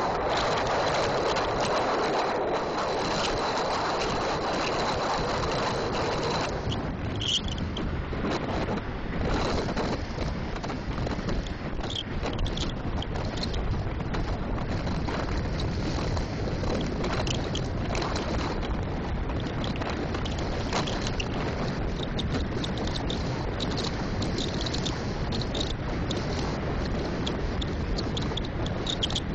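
Wind rushing over the microphone of a bicycle-mounted camera on a fast downhill descent: a steady roar that eases a little after the first several seconds, with a faint thin high tone at first and a few scattered light ticks later.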